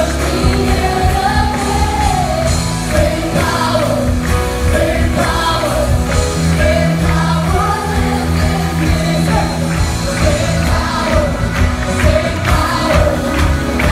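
Live contemporary worship band playing, with a lead voice and backing singers singing the melody together over acoustic and electric guitars, keyboard, bass and drums.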